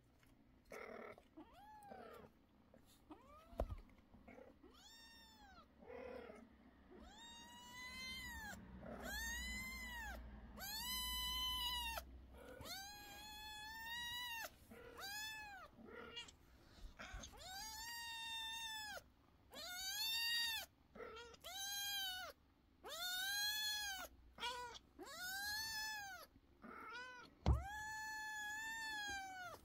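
A kitten meowing over and over, loud high-pitched calls about one a second, each rising then falling in pitch. The calls are faint at first and louder from about a quarter of the way in. A single short thump comes near the end.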